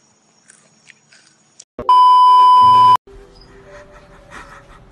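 A loud censor bleep: a steady, pure 1 kHz beep lasting about a second, starting and stopping abruptly just before the middle, covering a word so the clip stays free of swearing. Faint background with a low steady hum follows.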